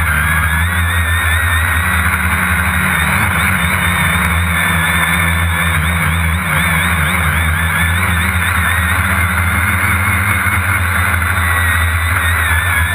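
Small multirotor drone's electric motors and propellers heard up close from its onboard camera: a steady whine whose pitch wavers up and down as the motors adjust, over a low hum.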